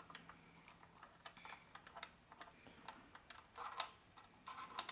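Screwdriver turning a long screw in the bottom panel of a Gigabyte BRIX mini PC: a run of small, irregular clicks and ticks, bunching up near the end.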